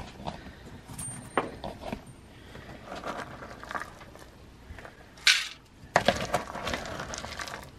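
A plastic scoop digging into a tub of dry ferret kibble, the hard pellets clinking and rattling as they are scooped and poured. There is a short sharp clatter about five seconds in, then a longer rattling spill of pellets.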